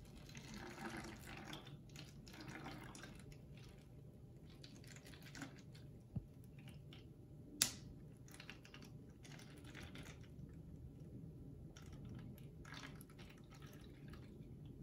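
Sugar-water solution trickling slowly from a glass through a plastic funnel into a plastic water bottle, faint, with one sharp click about halfway through.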